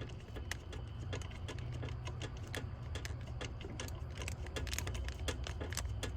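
Small metal bolts clicking and ticking irregularly as ignition-coil hold-down bolts are handled and threaded in by hand, over a low steady rumble.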